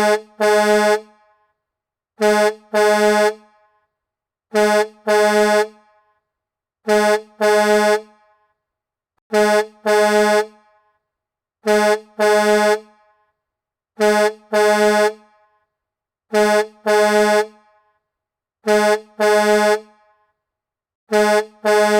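Truck horn honking a short toot followed by a longer blast, the same pair repeating evenly about ten times, a little over two seconds apart.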